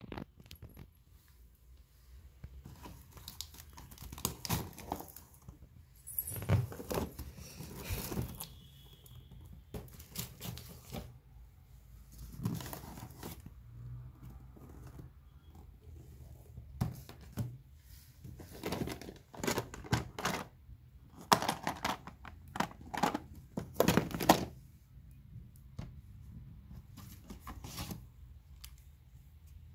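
Irregular rustling and crinkling of paper and cardboard with scattered light knocks, as papers and cardboard organizer boxes are handled.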